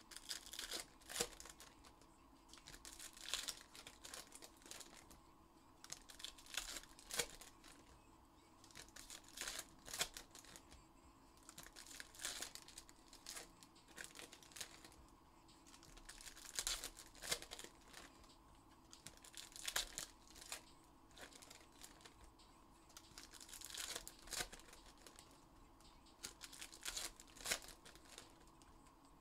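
Trading card packs being torn open by hand, their wrappers crinkling in faint, irregular bursts every second or two.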